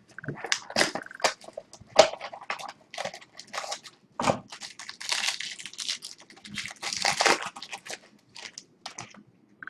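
Trading cards and their packaging handled by hand: a run of crinkles, rustles and small clicks, thickest about five seconds in and again around seven seconds in.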